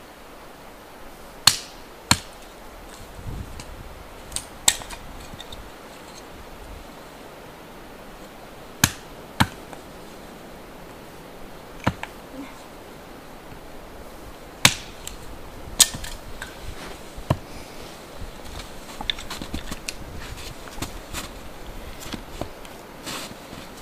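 Hatchet splitting kindling on a wooden chopping block: about nine sharp single chops at irregular intervals, followed near the end by lighter knocks and clatter.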